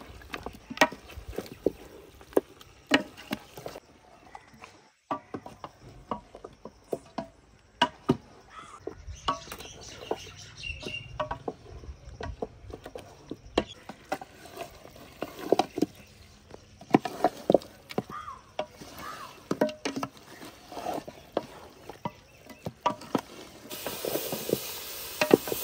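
Goat or cow trotters being fried in spice paste in a pot: a spoon stirring them, knocking and scraping against the pot in irregular clinks, over a low sizzle. Near the end the sizzle becomes a steadier hiss.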